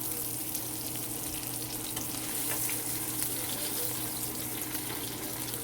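Marinated milkfish frying in hot oil in a pan: a steady sizzle with small, frequent crackles and pops.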